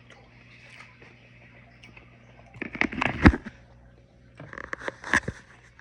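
Two bursts of clattering knocks from kitchenware being handled, the first, a little past the middle, the louder.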